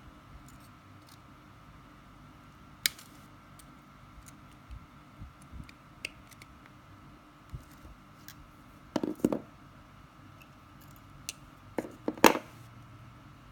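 Steel pliers clicking and scraping on thin steel wire as it is bent into a small loop. There are scattered small ticks, a sharp click about three seconds in, a quick cluster of clicks past the middle and the loudest cluster near the end, over a faint steady hum.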